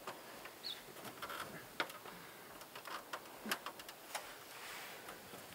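Light scattered clicks and knocks as a long metal veranda beam is handled and set onto its metal posts by two people on aluminium stepladders.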